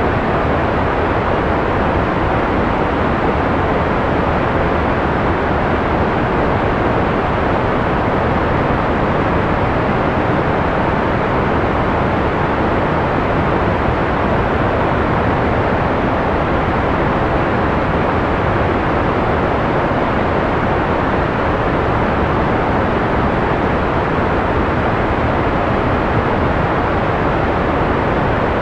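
Steady analog white noise: an even, unchanging rushing hiss with no breaks, full in the low and middle range and softer in the highs.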